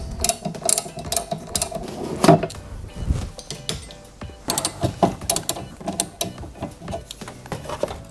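Toyota RAV4's plastic windscreen cowl panel being unclipped and lifted off by hand: a quick run of sharp plastic clicks and knocks.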